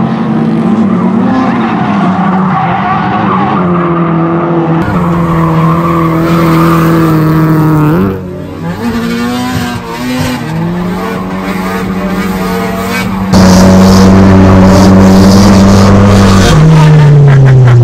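Nissan S13/S14 drift cars' engines at high revs with tyre squeal, over several cut-together shots, the engine notes rising and falling. In the last few seconds, heard from inside a car's cabin, one engine holds a steady note, then its revs fall away near the end.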